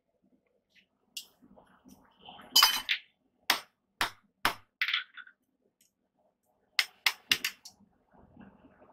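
Hand hammer striking a handled hot punch driven into a red-hot flat steel bar on a steel block. Sharp metallic strikes come about half a second apart, then a quick run of four near the end.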